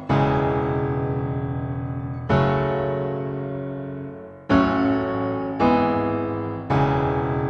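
Background piano music: slow chords, each struck and left to ring and fade, five in all.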